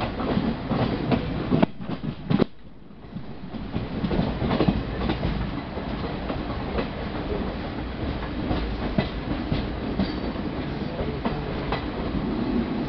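Running noise of an express passenger train heard from aboard the moving coach: a steady rumble with the wheels clicking and clattering over rail joints and yard points. There are two sharp knocks about two seconds in, then the noise briefly drops before picking up again.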